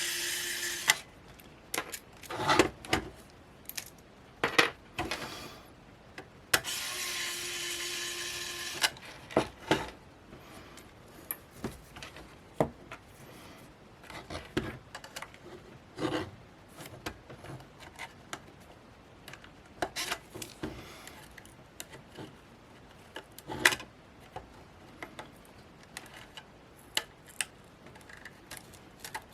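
Hand disassembly of a cheap plastic camera: scattered clicks, taps and scraping as small tools and plastic parts are handled and pried. A steady whirring noise runs briefly at the start and again for about two and a half seconds some seven seconds in.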